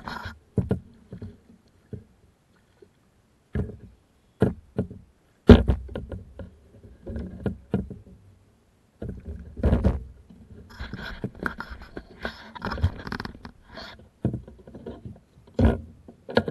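A small largemouth bass splashing beside a plastic kayak as it is landed, then irregular knocks and scrapes of the fish, rod and gear being handled against the hull. The loudest knock comes about five and a half seconds in.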